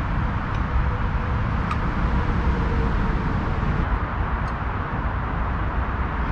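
Steady road traffic noise, cars passing continuously around a roundabout, with a few faint clicks.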